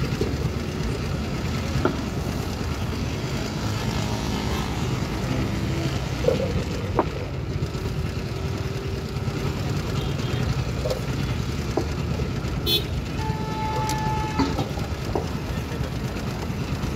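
Steady low engine rumble of a busy street, with scattered background voices and a short held tone about thirteen seconds in.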